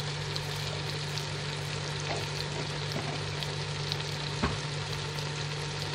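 Fish pieces in a tomato masala sizzling steadily in a cooking pot, over a steady low hum. One sharp knock about four and a half seconds in.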